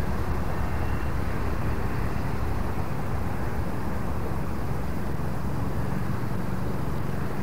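Steady low rumble of distant motor engines, with a faint engine hum under it.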